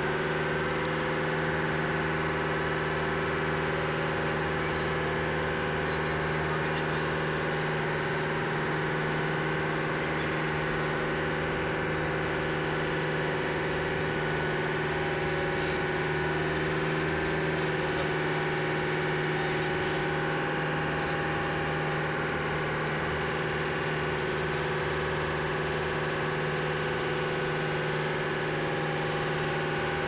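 Tour boat's engine running at a steady, even pitch for the whole stretch, over a steady rush of churning water.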